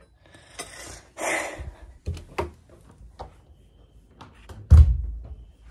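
Movement and handling noises: two brief rustling swishes near the start, a few light knocks, then a loud dull thump near the end.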